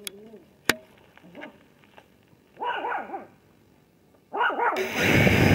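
A dog barks in two short runs of several barks, about two and a half and four and a half seconds in, after a single sharp click. Near the end a loud, steady whir starts abruptly: the rotors of a model aircraft spinning up.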